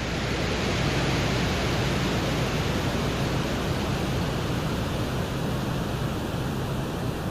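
Steady rushing noise, like hiss or wind, from the Venera 14 lander's microphone recording on the surface of Venus, a microphone meant to pick up wind noise.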